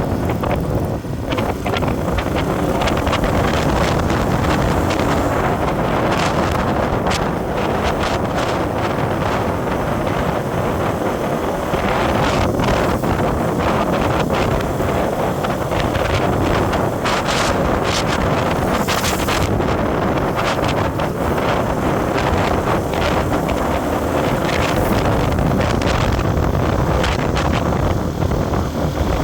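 Wind buffeting the microphone over the steady noise of a moving road vehicle, with scattered crackles and clicks.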